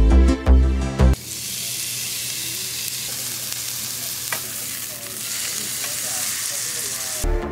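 Steady sizzle of a meat patty frying in hot fat on a flat griddle. Electronic background music plays for about the first second, stops suddenly, and comes back near the end.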